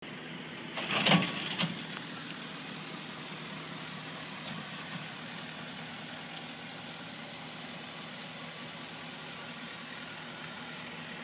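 Ford F350 Super Duty's Power Stroke turbo diesel engine running steadily as the truck slowly tows a boat trailer past, with a couple of sharp knocks about a second in.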